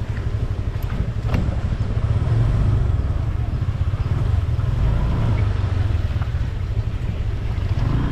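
Scooter riding along, wind rumbling on the microphone over the steady sound of the scooter running.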